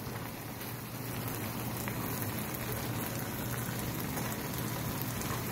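Pan of nopales with meat, onion and tomato sizzling and simmering on the stove, a steady crackle that grows slightly louder about a second in.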